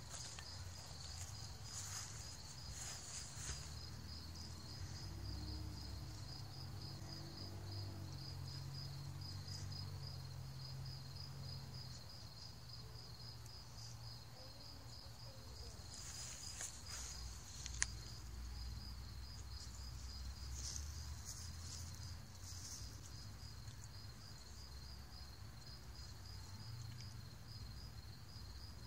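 Crickets chirping steadily in the background, an even train of high chirps a few times a second, over a low rumble, with brief rustling about halfway through.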